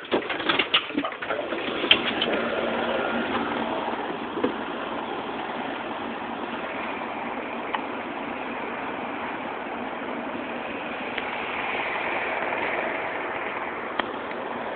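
A few sharp clicks and knocks as a house door is unlatched and opened, then a steady outdoor hiss of background noise with a faint tick now and then.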